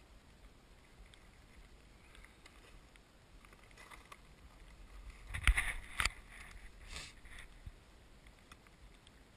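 Two sharp knocks about half a second apart, with a softer one a second later, over faint wind noise.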